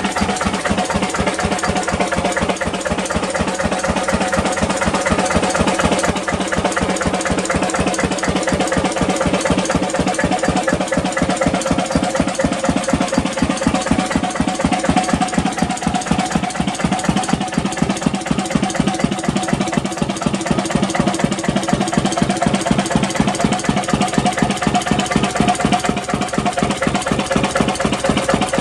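1937 Lister CS 3.5 hp single-cylinder 'cold start' diesel stationary engine running steadily at an even, regular firing beat.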